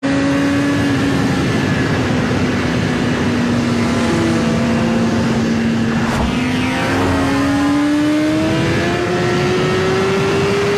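Loud engine sound effect running steadily. Its note sags slightly, then climbs gradually from about six seconds in, with a brief sharp click as the rise begins.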